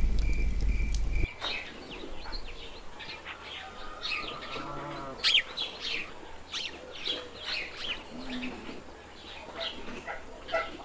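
Crickets chirping in a steady pulse over a low rumble, which cuts off abruptly about a second in. Then many small birds chirping in a dawn chorus, with occasional bleats from a flock of sheep.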